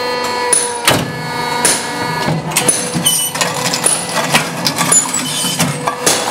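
Hydraulic paver block press running through its cycle: a steady machine hum under repeated metallic knocks and clatter from the press plate and the sliding mould feed box, with a sharp knock about a second in.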